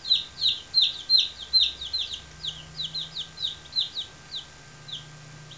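Four-day-old chicks peeping: a quick run of short, high, falling peeps, several a second, loudest in the first two seconds and thinning out toward the end.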